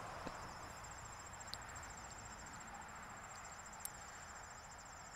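Faint, steady chorus of insects trilling: an even, high-pitched pulsing, with a couple of faint clicks.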